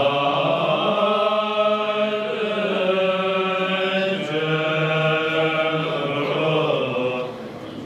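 Tibetan Buddhist monks' voices chanting together, long-held low notes that step from one pitch to the next, with a brief break for breath near the end.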